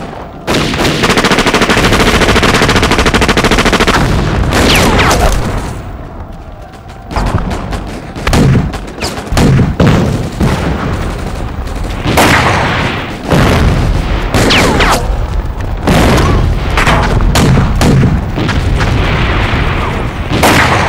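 Battle sound effects: a long, rapid machine-gun burst lasting about three and a half seconds, then a string of loud explosions mixed with scattered gunfire.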